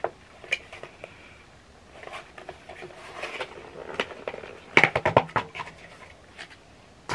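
Plastic takeout container being handled and its snap-on lid pried off: scattered clicks and crinkling, with a loud cluster of plastic snaps about five seconds in.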